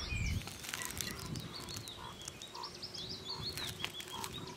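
Faint outdoor animal calls: many short chirps and whistles, with a lower croak-like call repeating about every half second.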